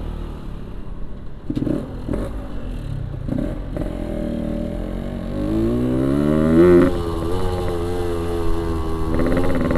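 Yamaha RX-King 135cc two-stroke single-cylinder motorcycle engine, blipped a few times and then accelerating hard. Its revs climb to a peak about seven seconds in, fall suddenly as it shifts up, and climb again near the end.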